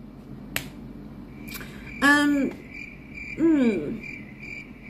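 A woman hums "hmm" twice with her mouth closed while thinking; the second hum falls in pitch. Behind it a high chirp pulses evenly, and a sharp click sounds about half a second in.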